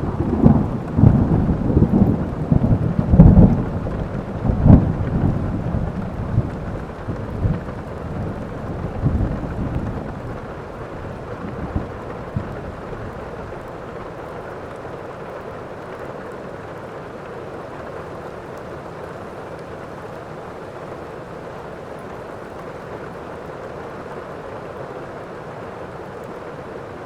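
Thunderstorm: a roll of thunder rumbling in repeated low surges that fades away over the first ten seconds or so, over rain falling steadily, which then goes on alone as an even hiss.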